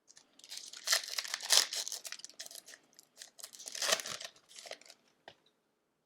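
Plastic wrapper of a hockey card pack being torn open and crinkled, in a run of crackling rustles that is loudest about a second in and again near four seconds, then stops.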